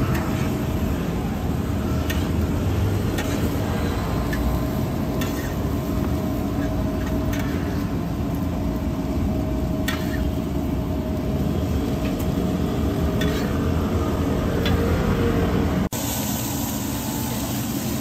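Oyster omelettes sizzling on a round griddle, with a metal spatula scraping and tapping now and then over a steady hum. About sixteen seconds in, the sound cuts to a hissing deep fryer full of bubbling oil.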